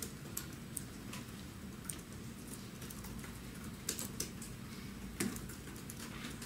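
Irregular clicking of laptop keyboards being typed on, several light keystrokes a second, over a low steady room hum.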